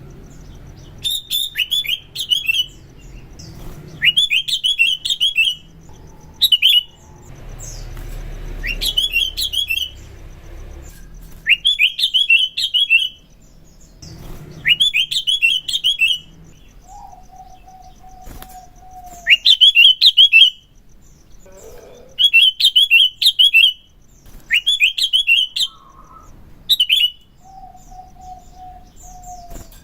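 Sooty-headed bulbul (kutilang) singing loud, chirpy, bubbling phrases of about a second each, repeated every two to three seconds. A lower, steady whistled note is heard twice, once in the middle and once near the end.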